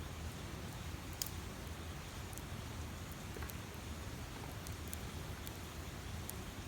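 Wood campfire crackling, with scattered sharp pops over a steady low rumble; the loudest pop comes about a second in.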